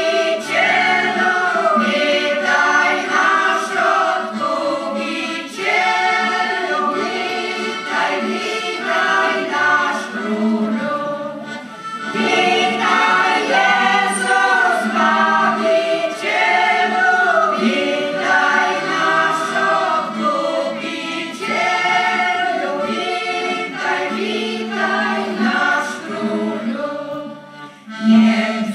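Women's folk choir singing a carol together, with an accordion accompanying and holding low notes underneath. The singing comes in phrases of several seconds with brief breaks between them.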